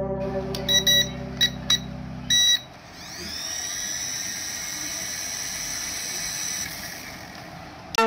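A few short electronic beeps, then the HX708 toy RC helicopter's small electric rotor motors spin up with a rising high whine and run steadily, fading slightly near the end. Background music plays under the beeps and stops before the motors start.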